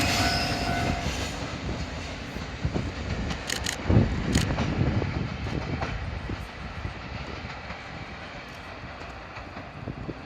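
Freight train wheels rolling and clacking over the rail joints, the rumble fading steadily as the train moves away, with a sharp clank about four seconds in.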